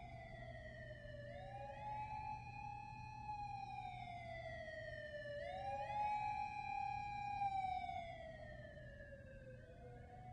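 Police car siren wailing, each cycle rising quickly and then sliding slowly down, about every four seconds, with a second wail just out of step with the first.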